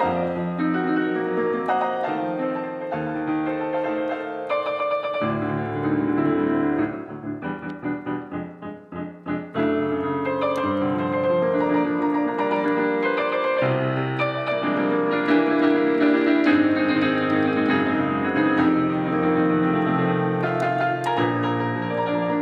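Digital piano played with full, sustained chords. About seven seconds in it drops to a quieter run of quick, separate notes for a couple of seconds, then the full chords return.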